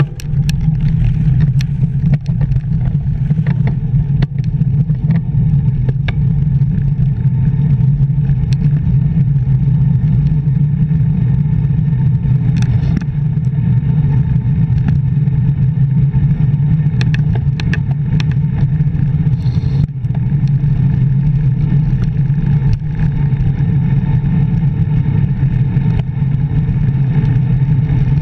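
Wind rushing over the microphone of a handlebar-mounted action camera on a fast road-bike descent: a steady low rumble with scattered sharp clicks and knocks from the bike going over bumps.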